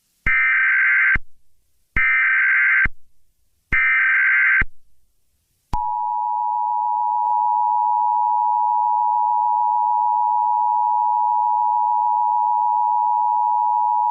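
Emergency Alert System tones: three short SAME header data bursts, each just under a second, then the two-tone attention signal held steady for about eight seconds, announcing an emergency alert message.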